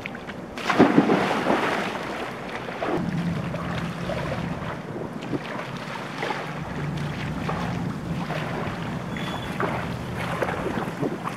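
A person jumps into a swimming pool with a loud splash about a second in, then swims, the water splashing and sloshing with each stroke.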